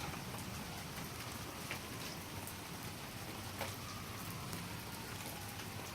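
Steady rain falling, with a few faint individual drips.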